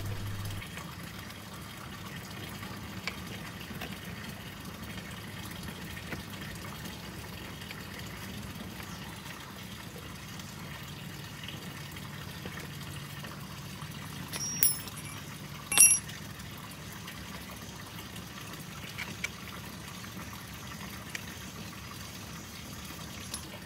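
Faint steady background hiss, with two sharp clicks about a second apart a little past the middle, as the plastic brush is fitted onto the trimmer's gearbox.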